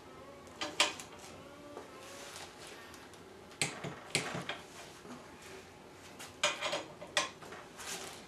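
Scattered sharp metallic clicks and clinks, some in quick clusters, as a socket on a torque wrench is fitted onto the fuel nozzles of a Fairchild J44 turbojet's metal fuel manifold ring and the nozzles are tightened.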